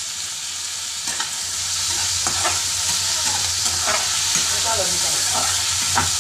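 Onions and tomatoes frying in oil in a metal kadhai, a steady sizzle that grows louder about two seconds in, while a spatula stirs them and scrapes and knocks against the pan several times.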